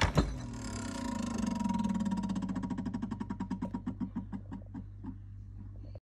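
Samsung French-door refrigerator door pulled open with a couple of knocks, then a rapid ticking inside the fridge that slowly spaces out and fades over a few seconds, over a steady low hum, like a fan spinning down.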